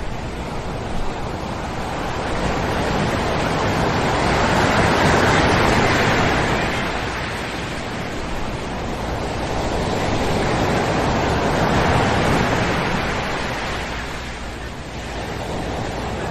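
Ocean waves breaking and washing up on a sand beach: a continuous surf noise that swells twice, about five seconds in and again about twelve seconds in, and then eases.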